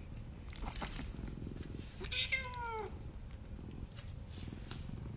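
Domestic cat meowing once, about two seconds in: a single call that falls in pitch, over a steady low purr. A brief rustling noise about a second in is the loudest sound.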